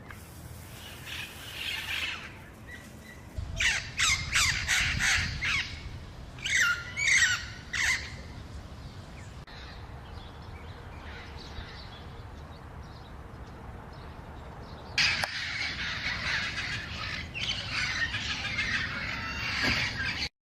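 Feral parrots squawking: a quick run of harsh calls a few seconds in, a few more shortly after, then a dense overlapping chorus of squawks near the end.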